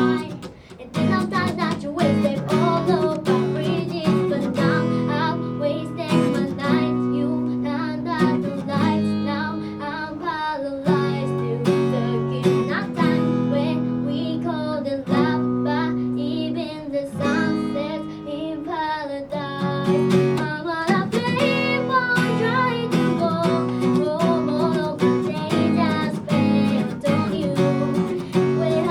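Unamplified live song: an acoustic guitar strummed with a voice singing over it.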